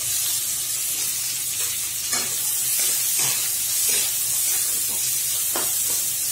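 Chopped onions sizzling in hot oil in a metal kadhai, with a steady high hiss, while a spatula stirs them, scraping against the pan now and then.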